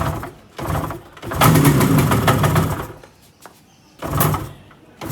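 Yamaha RD350's two-stroke parallel-twin engine running in short bursts of throttle with quieter gaps between, three bursts with the longest about a second and a half in.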